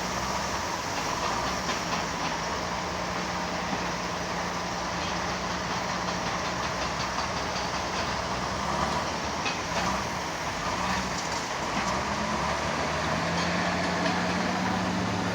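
Heavy diesel construction machinery engine running steadily, with scattered light clanks and knocks.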